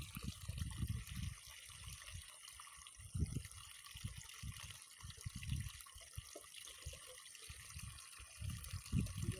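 Water trickling, with irregular low thuds throughout.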